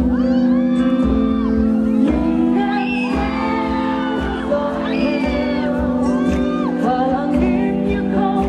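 A woman singing a pop song live into a handheld microphone over amplified backing music with a steady beat.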